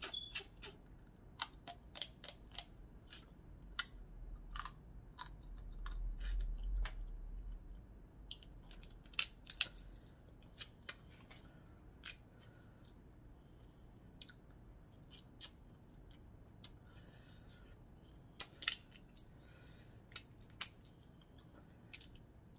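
Boiled crab legs being cracked and picked apart by hand: sharp, irregular snaps and clicks of shell breaking. A low rumble swells about four seconds in and fades by ten.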